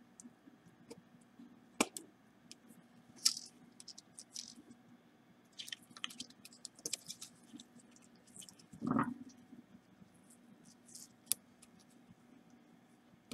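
Faint small clicks and scratches of tweezers and small parts being handled on an iPhone 5 logic board on a work mat, with a few sharper clicks and one duller knock about nine seconds in.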